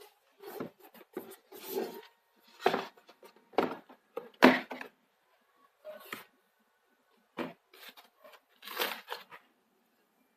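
Packaging being handled and torn open, in a series of short, irregular rustling and tearing noises with brief silences between them; the loudest comes about four and a half seconds in.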